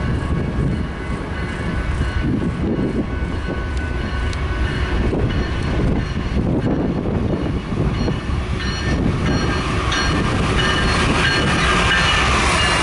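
Eastbound BNSF double-stack intermodal freight train passing: diesel locomotives running with a steady rumble and the wheels running on the rails. The noise grows louder and higher-pitched toward the end as the train comes closer.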